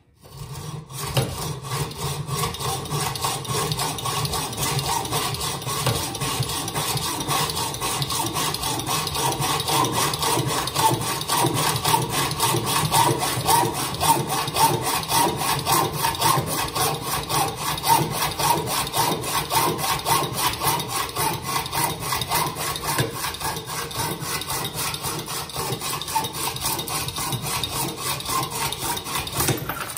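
Hacksaw with a sharp blade cutting through a bicycle steerer tube clamped in a steerer-tube cutting guide, in steady back-and-forth strokes.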